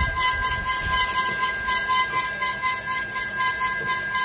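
Small tapioca pearl (boba) making machine running: a steady high whine with a rapid, even chatter of about five beats a second.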